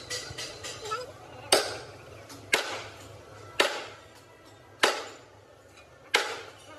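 Five heavy hammer blows on metal, about a second apart, each ringing briefly, as the parts of a rusted excavator track roller are worked on.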